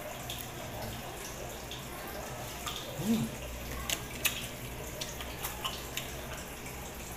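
A man chewing and eating peeled raw shrimp: a short voiced 'mm' about three seconds in, then a few sharp lip-smack clicks, over a steady hiss.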